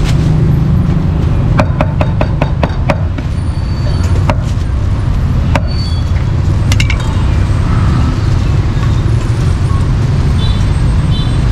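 A quick run of about seven sharp chops, roughly five a second, about two seconds in, typical of a cleaver chopping meat on a wooden block. Scattered light clinks follow, over a steady low rumble throughout.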